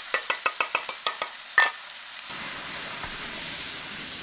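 Sauce hitting a hot frying pan and sizzling: a quick run of sharp crackles and pops for the first second and a half, one louder pop, then a steady sizzle as it bubbles.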